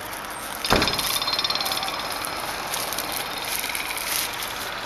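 Bundle of long thatching straw rustling and crackling as it is handled and shaken in gloved hands, with a knock just under a second in.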